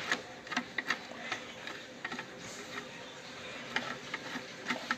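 Light, irregular clicks and ticks of a long screwdriver turning a screw set deep in the back of a Singer 2517C sewing machine's housing.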